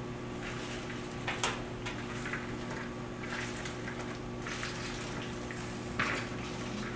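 Chopped cabbage scraped from a plastic bowl into a pot of boiling water: soft splashing and rustling, with a sharp knock about a second and a half in and another near the end, over a steady low hum.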